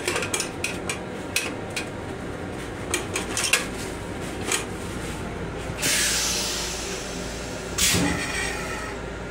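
Toilet paper pulled from a metal wall dispenser, with a run of clicks and rattles. Then a sudden hiss that fades over about a second and a half, and a shorter one about two seconds later, over a steady low rumble.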